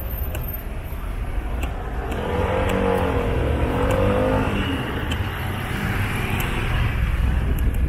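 City street traffic with a motor vehicle driving past close by. Its engine grows louder about two seconds in, with a wavering engine tone over a steady low rumble.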